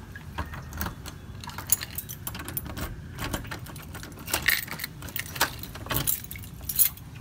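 A bunch of keys jangling on a ring as a key is fitted and turned in a brass doorknob lock: a run of irregular metallic clicks and rattles.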